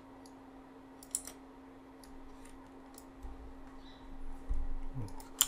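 Computer mouse clicks and keyboard keystrokes while code is edited: scattered short clicks, a pair about a second in and a louder one near the end, over a faint steady hum.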